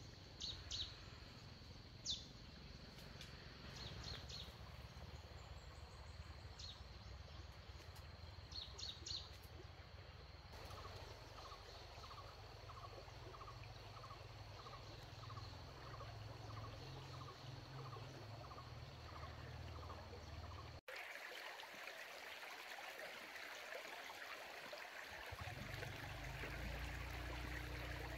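Faint forest ambience: a steady high insect drone with scattered short bird chirps, then a soft call repeating about one and a half times a second. About two-thirds of the way in it cuts to the hiss of a running stream.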